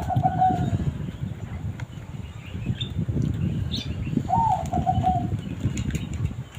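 A bird calls twice, about four seconds apart. Each call is short, jumping up and then holding a little lower for under a second. Both sit over a constant, rough low rumble.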